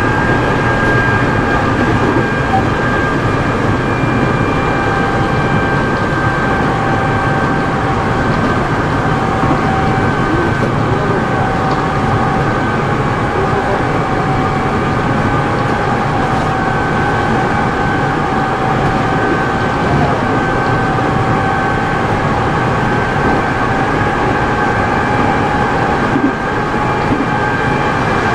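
Nankai 6000 series electric train running at a steady speed, heard from inside its lead car, a resistance-controlled motor car with Mitsubishi traction motors: a steady whine of motors and gears over wheel and rail noise.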